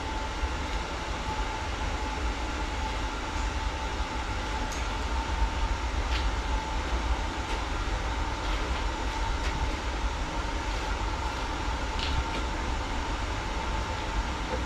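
Steady machine hum with a thin, even whine and a low rumble, broken by a few faint light clicks.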